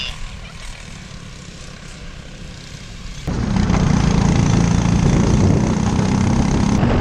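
Briggs & Stratton LO206 single-cylinder four-stroke kart engines running at racing speed, more distant at first, then from about three seconds in suddenly much louder and closer with a steady high-revving drone.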